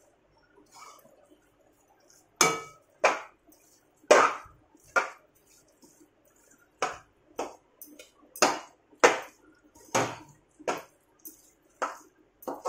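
Flat metal spatula scraping and clacking against a stainless steel kadai while stirring a crumbly coconut mixture. About a dozen short, irregular strokes begin about two seconds in.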